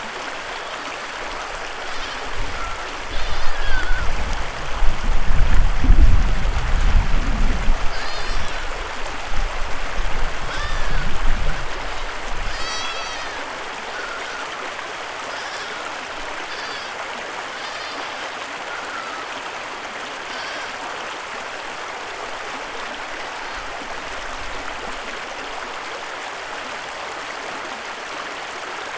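Creek water running steadily over a shallow bed. A loud low rumble comes in about two seconds in and fades out by about twelve seconds, and short high calls, rising then falling, recur every second or two.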